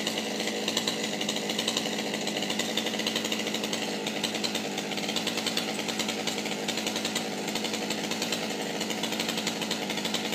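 Two-stroke chainsaw running steadily at an even, unchanging pitch.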